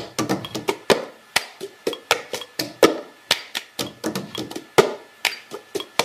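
Rapid, irregular sharp tapping, about four or five taps a second, each with a short ringing tail, over a faint steady hum.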